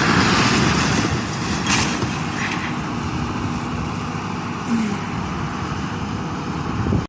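Heavy equipment engine running: a steady, noisy rumble that eases a little after the first two seconds and ends in an abrupt cut.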